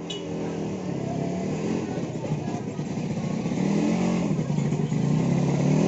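A motor vehicle engine running and revving, its pitch rising and falling.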